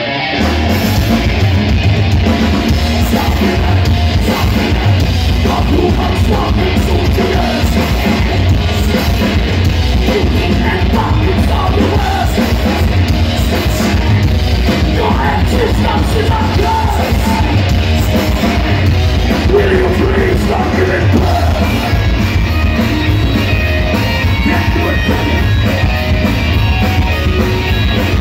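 A heavy metal band playing live at full volume: distorted guitars, bass and pounding drums under shouted, yelled vocals.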